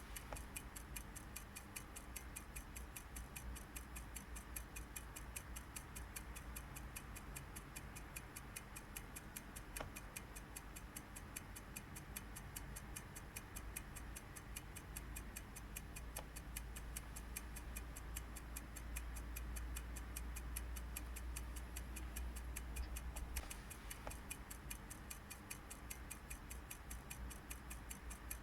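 Steady, even ticking, several ticks a second, over a faint low hum.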